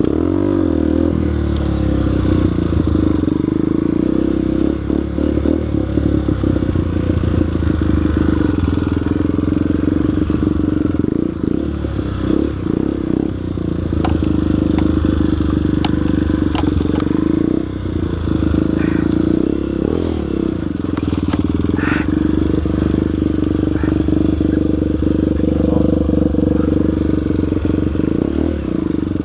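Single-cylinder trail motorcycle engine running steadily under way on a rough dirt trail, with the throttle eased off briefly a few times. Short clatters and knocks come from the bike jolting over the ground.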